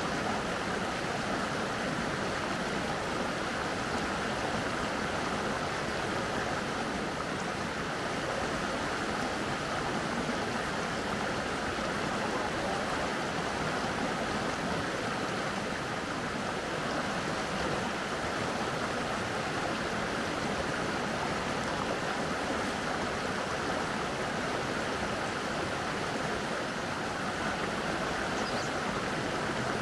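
Mountain stream water rushing steadily, an even, unbroken sound of flowing water.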